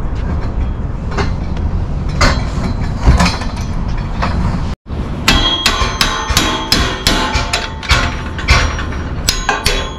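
Hammer blows on aluminium system scaffolding, knocking the ledger wedges home into the standards' rosette joints. A few scattered knocks give way, about halfway through, to quick strokes at about two to three a second, each leaving a metallic ring.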